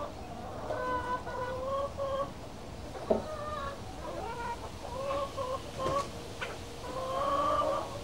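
Chickens clucking, a string of short drawn-out calls with a longer held call near the end, and a sharp knock about three seconds in.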